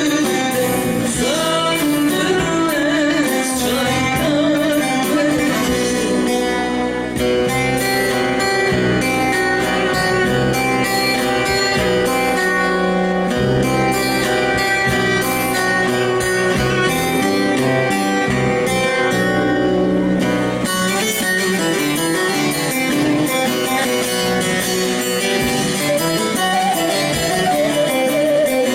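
Turkish folk music (a türkü) played on plucked string instruments, with a singing voice mainly near the start and again near the end.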